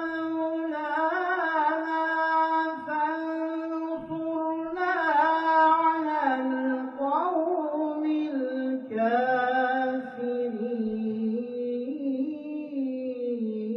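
A solo voice chants in long held notes with ornamented melismatic turns, its pitch stepping slowly lower across the passage, in the style of Islamic religious recitation.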